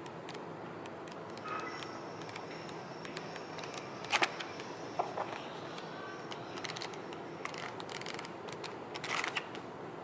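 Paper pages of a printed booklet being flipped one-handed: scattered rustling and crackling, the loudest page turns about four seconds in and near the end.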